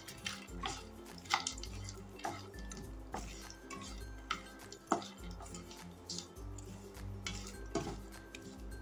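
Wooden slotted spatula scraping and knocking irregularly against a nonstick frying pan as fox nuts (makhana) are stirred while they roast, the light puffed seeds rattling over the pan. Background music plays underneath.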